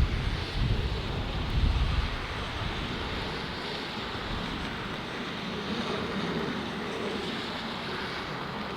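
Steady rushing jet engine noise of an airliner, with gusts of wind buffeting the microphone in the first two seconds.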